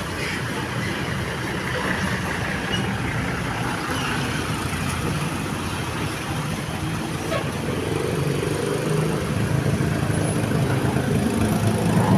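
Road vehicle engine running amid traffic noise, getting louder over the last few seconds.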